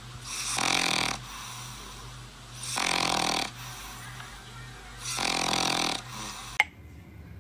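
Ginger cat snoring in its sleep: three long snores about two and a half seconds apart, over a faint steady hum, ending in a sharp click.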